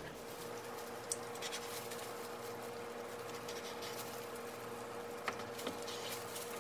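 Cleaver slicing a cooked chicken thigh on a plastic cutting board: a few sharp taps as the blade meets the board, over a faint steady hum.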